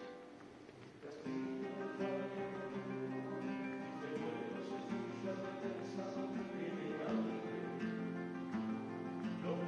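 Live acoustic guitars playing: a brief quiet lull about a second in, then the guitars come back in with strummed chords and held notes.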